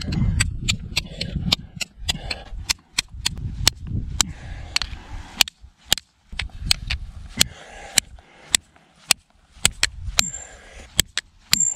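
A Cold Steel SR1 tanto folding knife's steel tip repeatedly stabbed and hammered into a stone block: a long run of sharp clicking impacts, about two to three a second. This is heavy abuse in a brick-stabbing torture test, with a low rumble underneath.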